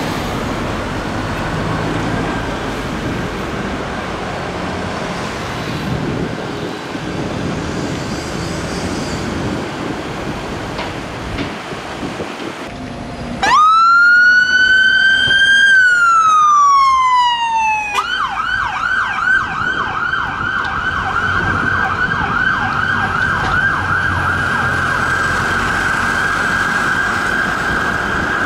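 Street traffic noise, then a fire investigation van's siren starts about halfway through. It gives one wail, rising and falling, and after about four seconds switches to a fast yelp that keeps going.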